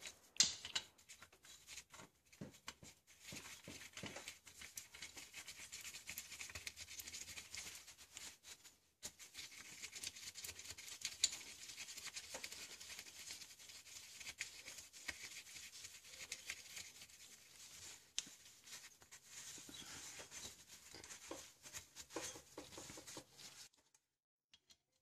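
Faint scratchy rustling and rubbing of a paper shop towel and gloved fingers wiping around the drain-plug hole of a rear differential housing, with many small clicks. It stops briefly about a third of the way in and ends shortly before the close.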